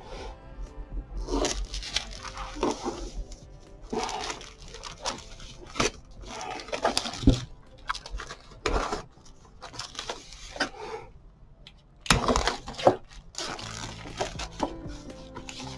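Clear plastic packaging being cut open and pulled back by hand: irregular bursts of crinkling and tearing, with the loudest rips about seven, twelve and thirteen seconds in. Soft background music runs underneath.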